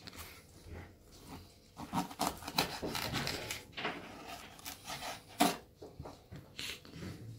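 Kitchen knife blade scraping and rubbing along a wooden cutting board in irregular strokes as it slides under a raw sole fillet, with one sharper scrape about five and a half seconds in.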